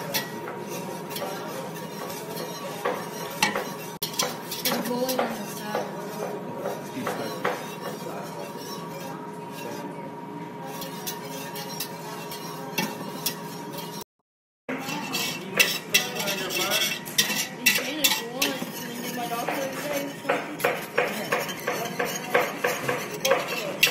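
Wire whisk stirring cooking caramel in a stainless steel pot, its wires clicking and scraping rapidly against the metal. The sound stops briefly about halfway through, and the strokes are louder and sharper after that break.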